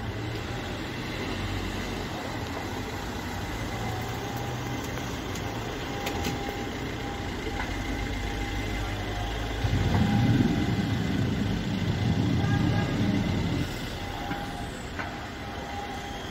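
Large fire burning caravans, heard from a distance: a steady roaring rumble with a few sharp cracks. A louder low rumble swells for about four seconds past the middle and then cuts off suddenly.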